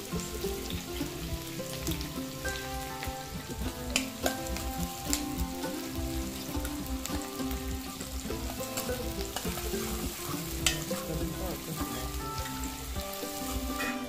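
Chopped onions sizzling in hot oil in a kadai, stirred with a steel ladle that now and then clicks and scrapes against the pan.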